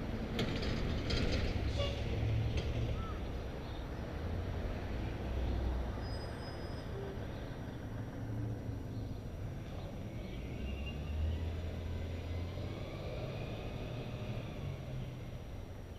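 Steady low rumble of wind and street traffic on a bicycle-mounted camera's microphone, with a few sharp clicks and rattles in the first few seconds and a faint whine that rises and falls later on.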